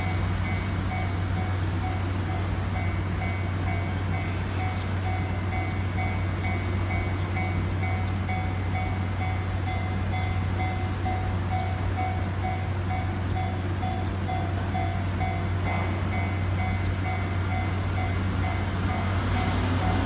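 Level-crossing warning bell ringing in even, repeated electronic strokes over a steady low hum. Near the end a vehicle engine grows louder and rises in pitch as it approaches.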